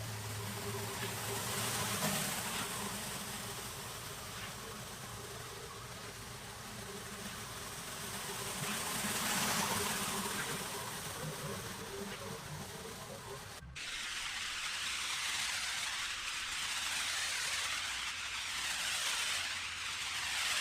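Pressure washer spraying water onto concrete, a steady hiss over the low hum of its engine; about 14 s in the sound cuts abruptly to a hissier spray without the engine hum.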